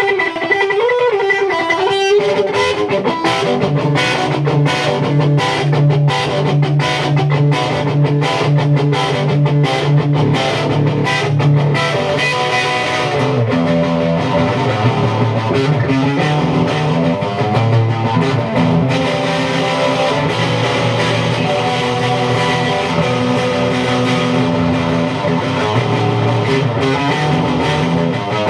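Electric guitar playing a solo. A wavering, bent note opens it, then rapid picked notes run over a low held note until about halfway, then slower held notes follow.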